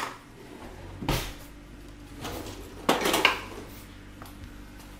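Kitchen utensil knocking and scraping against a mixing bowl, with a few sharp clinks about a second in and again around three seconds in, over a faint low hum.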